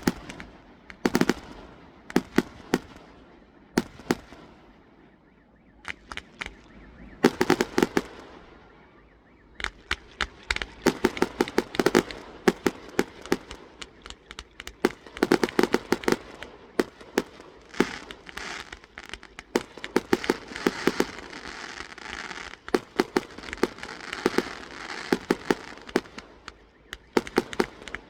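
Fireworks going off: scattered sharp bangs at first with a brief lull, then dense rapid volleys of bangs from about ten seconds in, with a stretch of crackling among them.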